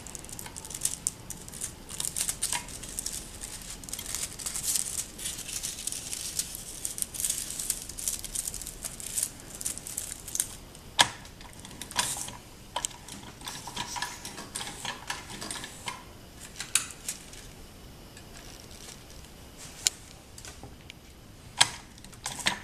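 Hot stamping foil crinkling and rustling in the hands as it is threaded through a foil stamping machine's rollers, with scattered sharp clicks and taps from the machine's metal parts, the loudest about halfway through.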